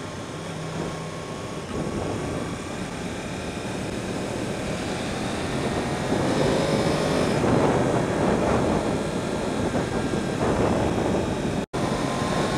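2015 Yamaha YZF-R1's inline-four engine running on the move, with wind noise on the microphone. About halfway through the engine note rises as the bike accelerates and the wind noise grows louder. The sound cuts out for an instant near the end.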